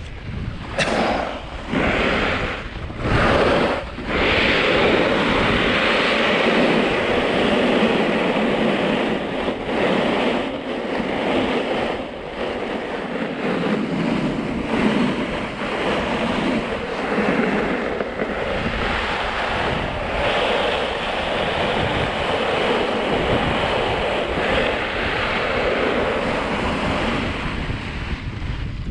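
Ski or snowboard edges scraping and carving over groomed, hard-packed snow at speed, with wind rushing over the microphone. Several separate scrapes come in the first few seconds, then the slide runs on continuously, swelling with each turn.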